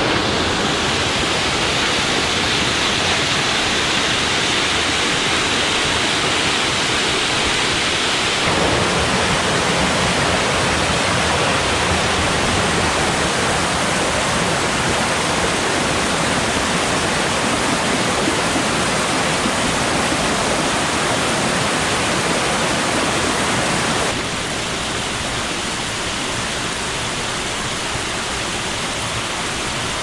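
Rushing water of a rocky hill stream cascading over boulders toward a waterfall, a steady, dense splashing rush. It changes character abruptly about eight seconds in, then drops slightly in level near the end.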